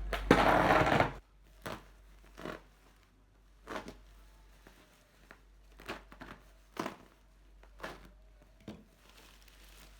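Packaging being opened by hand: a loud rustling tear in the first second, then short crinkles and crackles about once a second.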